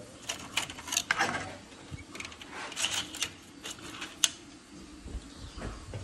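Plastic drag chain links clicking and rattling as the folded chain is pressed into a tight-fitting extrusion. Irregular short clicks throughout, the sharpest a little past four seconds in.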